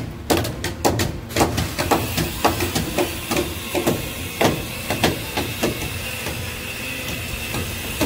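Hammers striking on a timber roof frame: sharp, irregular knocks, often one or two a second, over a steady hiss. The blows come from carpenters driving kasugai (iron cramps) to fix the roof struts to the purlins.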